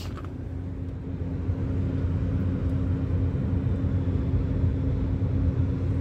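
Steady low background rumble, with a steady hum that comes in about half a second in and holds.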